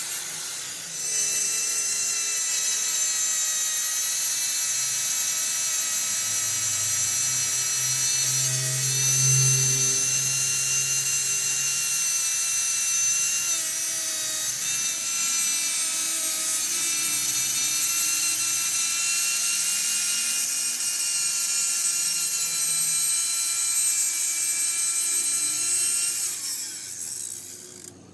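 A power tool running steadily with a high-pitched whine of several tones, dying away near the end.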